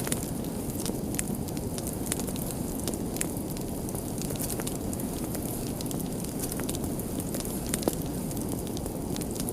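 Wood fire burning with a steady low rumble and frequent sharp crackles and pops, one louder pop near the end.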